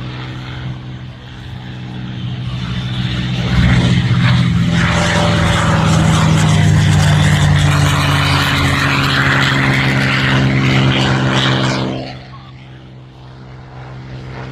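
Propeller airplane flying past with a steady engine drone. The drone swells over the first few seconds, stays loud for about eight seconds, then falls away sharply near the end.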